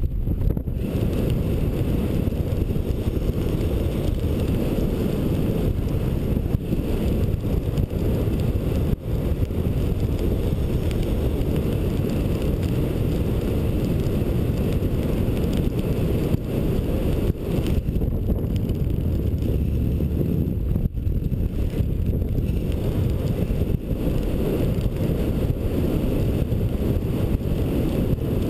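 Airflow rushing over a GoPro's microphone during paraglider flight: steady, loud, low wind noise.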